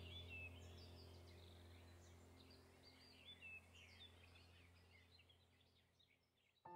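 Near silence: faint bird chirps over the tail of a sustained, droning background-music chord that fades out toward the end.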